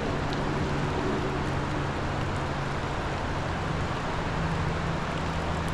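Steady rushing outdoor noise at an even level, with a low droning hum underneath.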